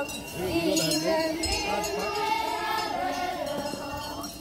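A group of children and adults singing a song together, with held, sustained notes.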